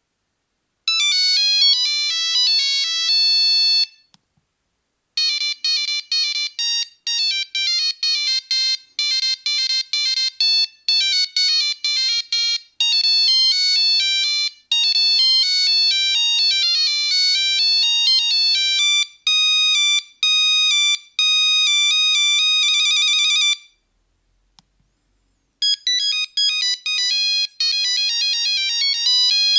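Nokia 3310 monophonic ringtones, beeping melodies played one note at a time. A short tune ends about four seconds in. After a brief pause a long, fast tune plays and ends in a rapid trill, and after another pause a new tune starts.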